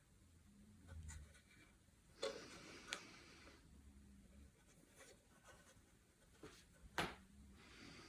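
Faint rustling and scraping of packaging being handled, with a few sharp clicks, the loudest about seven seconds in.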